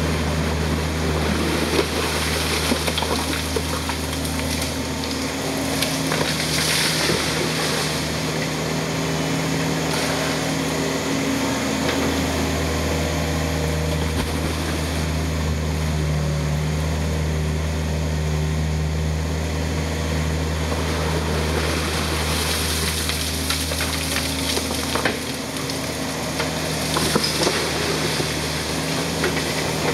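Yanmar ViO55 mini excavator's diesel engine running steadily under hydraulic load as the ditching bucket digs wet sand and silt, its note shifting as the boom works. Water splashing and sloshing comes through a few times as the bucket scoops and lifts out of the pond.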